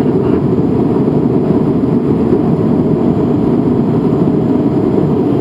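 Cabin noise inside an Airbus A220-300 in flight: a loud, steady, deep drone of the Pratt & Whitney PW1500G geared turbofans and the airflow over the fuselage, heard from a seat over the wing. A faint steady whine sits above it.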